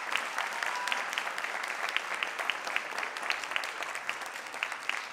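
Audience applauding: dense, steady clapping from a seated crowd in a hall.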